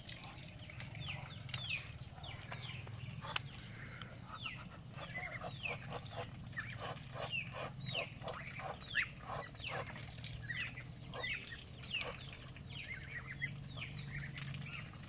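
Muscovy ducks feeding at troughs of wet rice-bran mash: bills dabbling and clicking in the feed, with a quick run of clicks about halfway through. Many short, high, falling peeps from the birds sound throughout.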